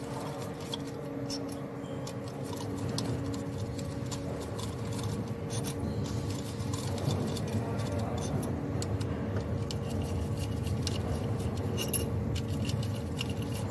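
Scattered light metallic clicks and clinks of a hand tool working the fuel rail bolts loose on a BMW B38 engine, over a faint steady hum.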